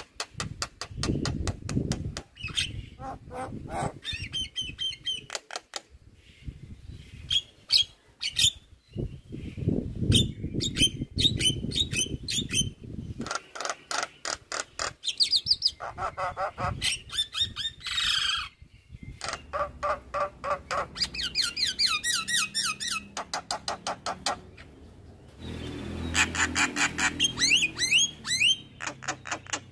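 Javan myna singing a long, varied song: fast runs of repeated clicking and chattering notes, sharp whistles and squawks, with a low rumble underneath at times.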